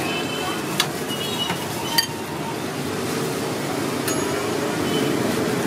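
Steady street background noise with a low traffic hum, broken by a few sharp clinks, the loudest about two seconds in.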